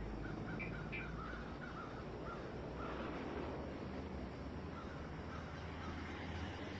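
A bird calling in a quick run of short, harsh repeated notes, then a few scattered ones, over a low steady rumble.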